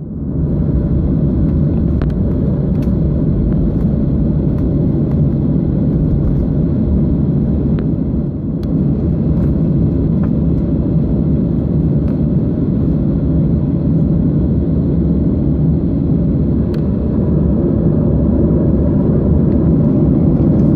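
Boeing 737-600's CFM56-7B jet engines and airframe heard from inside the cabin over the wing: a steady low rumble with a few faint clicks, growing a little louder near the end as the jet sits lined up on the runway.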